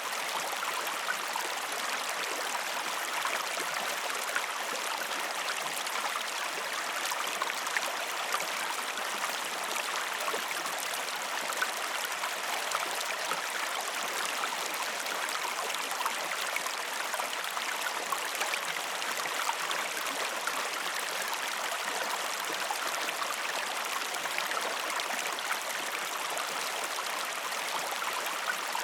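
Stream water flowing and splashing over rocks, a steady even rush with fine gurgling detail throughout.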